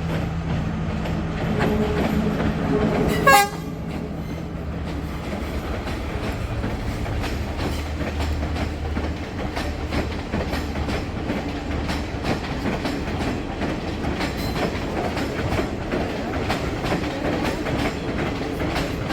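Diesel passenger train passing close by: its engine runs with a low steady drone, a short loud horn blast sounds about three seconds in, then the carriages rumble past with wheels clicking over the rail joints.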